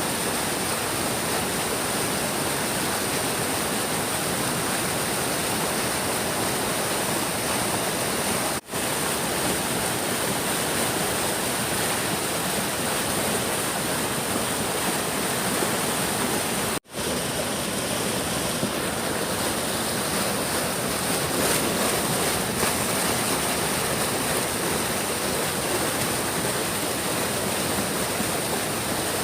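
Big stream's water rushing steadily. The sound drops out for an instant twice, about 8.5 and 17 seconds in.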